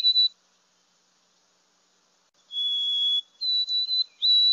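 Recorded white-throated sparrow song, clear pure whistles. A phrase ends right at the start; after about two seconds of silence the song comes again: a long lower note, a higher one, then a string of short repeated high notes, the 'Old Sam Peabody, Peabody' song.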